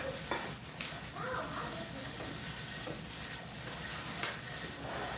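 Steady hiss of steam from a pressure canner running on the stove, with a few faint clicks of tongs against a plate.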